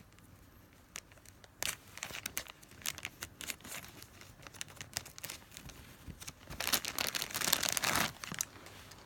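Happy Meal toy packaging being torn open by hand, with irregular crinkling and tearing throughout, heaviest about two-thirds of the way in.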